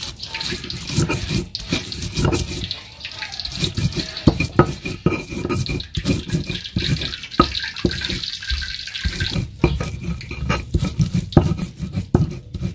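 Stone pestle knocking and grinding on a stone mortar (ulekan and cobek), crushing chillies and garlic for raw sambal, in quick irregular knocks and wet scrapes.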